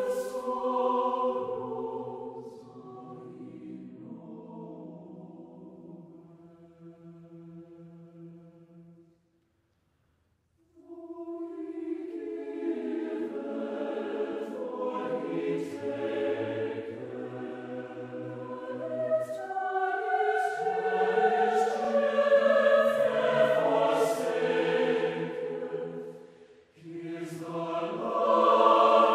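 Choral music: several voices singing long held notes together. The singing fades out and stops for about two seconds a third of the way in, then starts again and grows louder.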